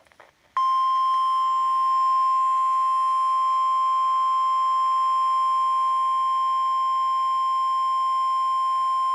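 NOAA Weather Radio warning alarm tone: a single steady 1050 Hz beep that starts about half a second in and holds unbroken at one pitch, sent as the weekly test of the alarm that switches on weather radios.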